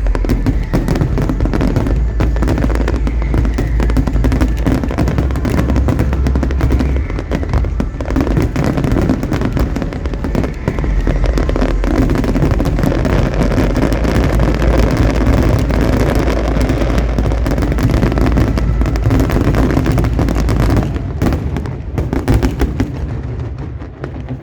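Fireworks in a dense, continuous barrage of booming shell bursts and crackle, typical of a display's finale, thinning out in the last few seconds.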